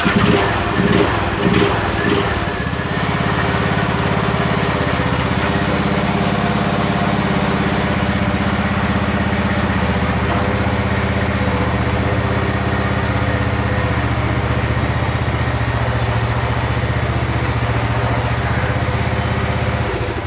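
Riding lawn mower engine running while towing another mower by rope, uneven for the first couple of seconds and then steady.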